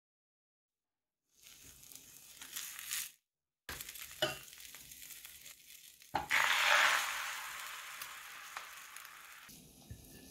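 Beaten egg and milk poured from a ladle into a hot frying pan: a sudden loud sizzle that slowly dies down. A few light clicks and knocks come before it.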